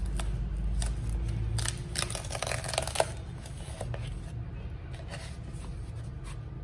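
Cardboard mailer being torn open along its rip strip: a dense run of ripping and crackling about two to three seconds in that ends in a sharp crack, then rustling of the cardboard being handled, over a steady low hum.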